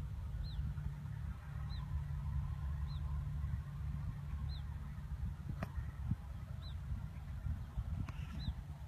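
A bird's short, high, falling chirp repeated every second or two over a steady low rumble, with a sharp click about halfway through.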